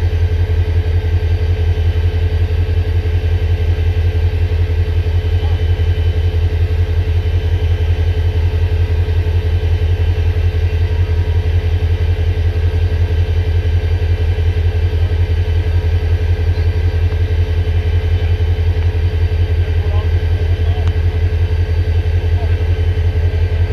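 A large diesel engine idling steadily, a deep even hum with a few steady tones above it.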